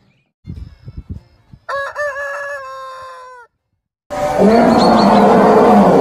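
A rooster crowing once, one long call lasting about a second and a half, a little under two seconds in. About four seconds in, a loud, rough animal growl begins and carries on.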